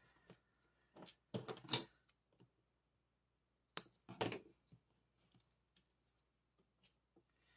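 Hands working double-sided tape onto card stock: a few short rasps of tape being pulled and pressed, with light clicks and paper handling in between. The loudest rasps come about two seconds in and again about four seconds in.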